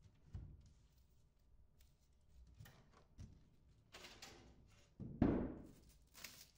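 A twin-wall polycarbonate greenhouse panel being handled: scattered light knocks and crackles of the plastic sheet and its film, with one louder thump a little past five seconds in.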